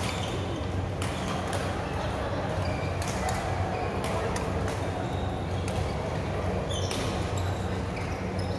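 Badminton play in a large hall: sharp, scattered racket hits on shuttlecocks and a brief squeak of court shoes about seven seconds in, over a steady low hum and faint chatter.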